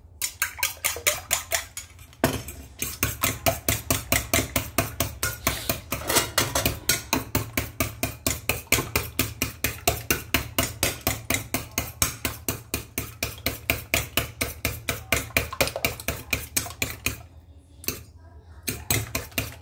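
A fork beating eggs in a small stainless steel bowl, clinking rapidly against the metal at about five strokes a second, with a short pause near the end.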